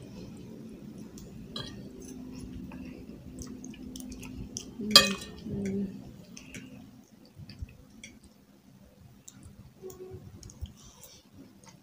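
Metal forks clicking and scraping on plates, with chewing, as two people eat baked macaroni with minced meat quickly. One brief loud burst about five seconds in.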